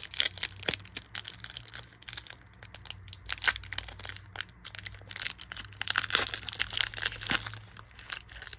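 Foil Pokémon booster pack wrapper being crinkled and torn open by hand: an irregular run of crackles and crinkles.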